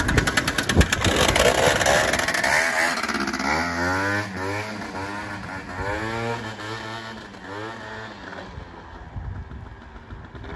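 Piaggio Zip scooter with a swapped-in 125cc Runner engine pulling away and accelerating hard, loud at first, then its revs rising and dropping repeatedly as it rides off and fades into the distance.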